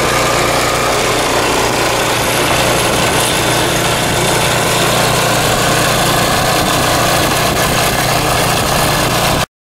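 Troy-Bilt Horse rear-tine tiller working hard, dry soil, its single-cylinder engine running steadily under load; the sound stops abruptly near the end.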